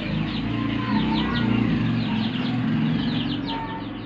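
Birds chirping: many quick, high chirps that slide downward, repeated throughout, over a low steady hum.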